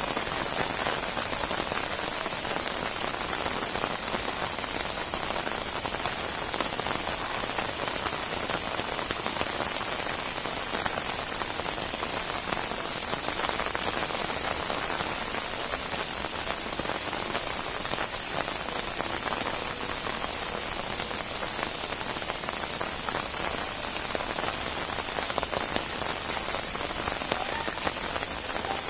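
Steady heavy rain falling on a surface, a dense hiss of many drops pattering without let-up.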